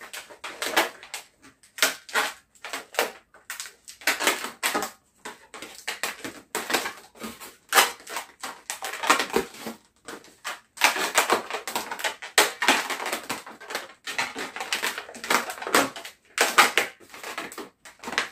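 Inflated latex modelling balloons squeaking and rubbing against each other as they are twisted and tucked together by hand, in irregular short bursts.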